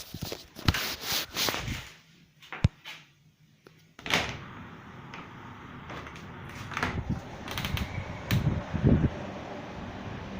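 Strong wind gusting and buffeting the microphone in uneven blasts, dropping to a lull with a few sharp knocks about two seconds in, then blowing steadily again with low thumps.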